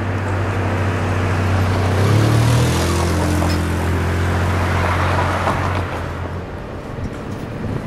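GE C40-8W diesel locomotives idling while stopped, a steady low engine hum whose note shifts and grows fuller about two seconds in, then eases a little near the end.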